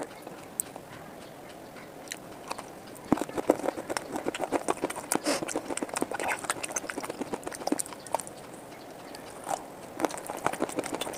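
Close-miked biting and crunching of brittle grey clay pieces in the mouth. A quiet first few seconds give way to a run of sharp, crisp crunches, then a short lull, then more crunching near the end.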